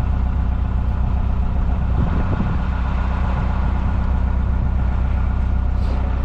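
Narrowboat's diesel engine running steadily at low revs, a loud, even low drone.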